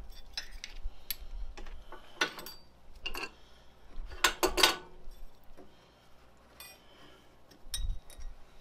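Metal parts of the Dyna Myte 2800 CNC mill's Y axis clinking and scraping as it is taken apart by hand, in scattered short strokes, the loudest pair about four seconds in, with a dull knock near the end.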